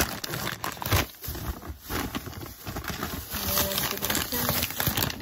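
Plastic bag of Russell Stover sugar-free chocolate candy being handled and pulled open by hand, crinkling and rustling with sharp irregular snaps.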